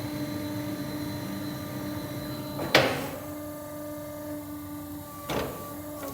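Sawmill machinery running with a steady hum, broken twice by a sudden loud whooshing clunk about two and a half seconds apart.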